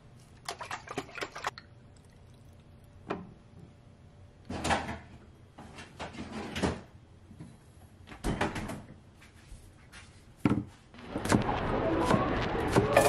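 Scattered knocks and taps of kitchen prep as a wooden cutting board and a leek are handled on a stone counter. Near the end a steady sizzle starts as chopped leeks go into a hot frying pan.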